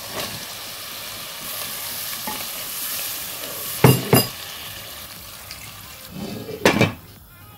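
Masala frying in oil in a cooking pot, sizzling as peeled potatoes go in. About four seconds in, two sharp knocks come as water is poured in. Just after six seconds a wooden spoon scrapes and knocks against the pot while stirring, and the sizzle quietens near the end.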